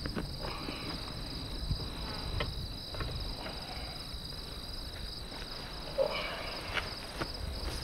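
Insects chirring steadily in a high, finely pulsing trill, with a few scattered knocks and rustles, the clearest about six seconds in.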